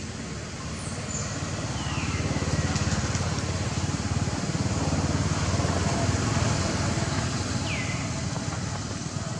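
Low rumble of a passing motor vehicle engine, swelling over the first couple of seconds and easing off near the end. A few short falling whistles sound above it.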